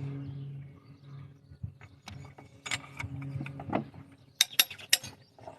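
Hand ratchet working a cylinder head bolt, its pawl clicking in a quick run of sharp clicks near the end, with a low steady hum earlier on.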